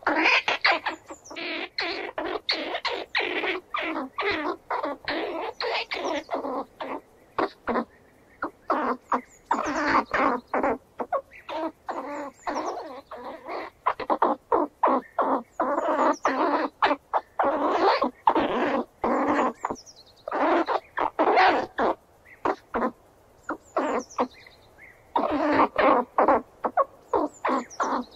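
Squirrel chattering: rapid series of sharp chucks and clicks in repeated bouts a second or a few seconds long, separated by short pauses, with brief high falling squeals over some of them.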